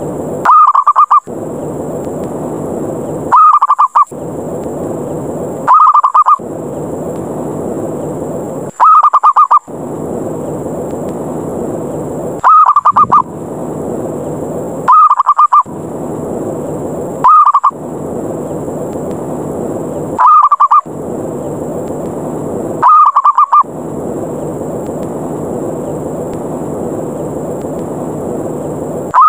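Zebra dove (perkutut) lure call: a short, rapidly pulsing coo repeated about every two and a half seconds, nine times, with a longer gap near the end. It is the challenging 'ngerot' call used to draw other perkutut in to fight. A steady rushing noise fills the gaps between calls.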